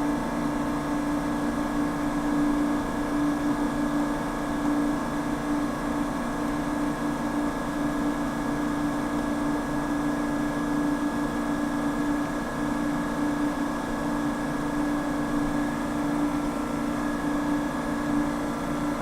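A steady machine hum with a strong low droning tone and fainter higher tones, unchanging throughout.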